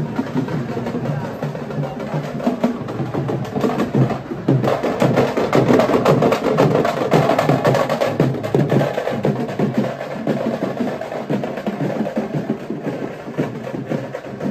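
Fast, continuous drumming with sharp, rapid strokes, loudest in the middle.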